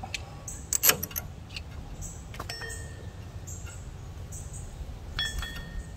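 Metal clicks and clinks of a worn rear brake pad being pushed in and pried up out of its slot in the caliper bracket: a sharp click about a second in, then two clinks with a brief metallic ring, around two and a half seconds and again near the end.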